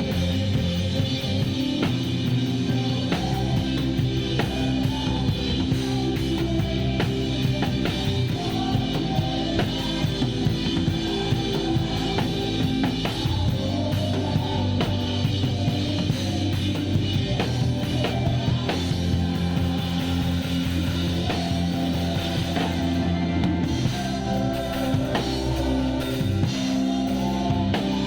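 Acoustic drum kit played at full band volume, with kick, snare and cymbal hits over the band's sustained pitched instruments, in a steady rock groove.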